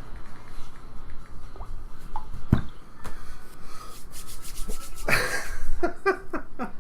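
Trading-card packaging and cards handled by hand: rubbing and scraping, with a sharp tap about two and a half seconds in and a louder rustle about five seconds in, followed by a run of quick short strokes near the end.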